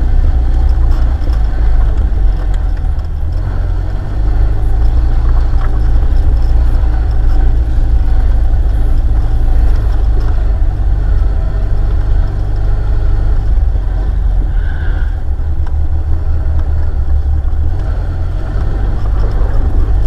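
UAZ off-road vehicle driving slowly along an overgrown forest track, its engine noise steady and deep.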